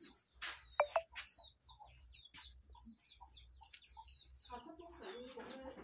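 Small birds chirping in quick, high, repeated notes, with a faint lower call near the end.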